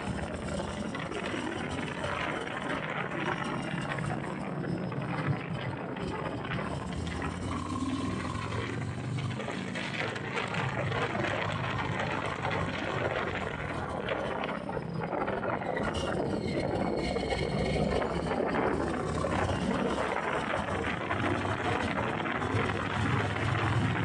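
Harley-Davidson Sport Glide's V-twin engine running on the move, under heavy wind noise on the microphone; the engine gets a little louder over the last several seconds.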